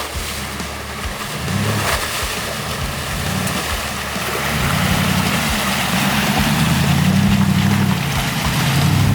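A four-wheel drive's engine running and growing louder as it approaches, over the steady rush of river water.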